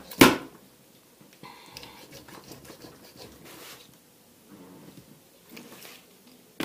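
A kitchen knife strikes a plastic cutting board in one sharp knock, then scrapes and saws quietly as it works through a raw chicken's wing joint. The blade is dull, sawing rather than cutting.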